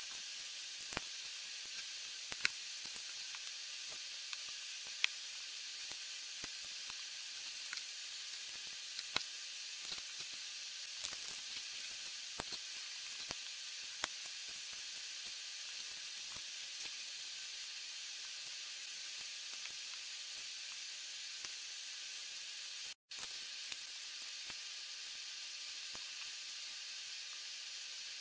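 Steady hiss with scattered small clicks and taps of plastic Lego bricks being handled and pressed together, most of them in the first half. The sound drops out for a moment about 23 seconds in.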